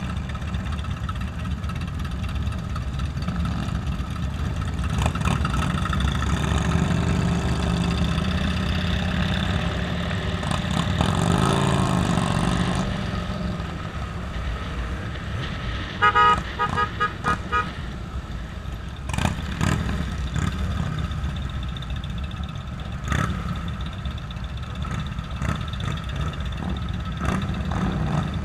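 Motorcycle engines running steadily in a large group ride, one engine revving up and back down around the middle. A quick string of short horn beeps sounds about sixteen seconds in.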